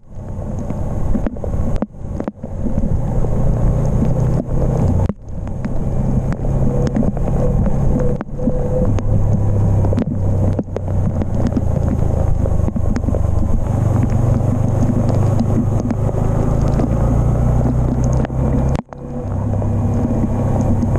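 Yamaha MT-15's 155 cc single-cylinder engine running while the motorcycle is ridden, with wind rushing over the microphone. The engine note rises and falls as the speed changes, and the sound cuts out briefly several times.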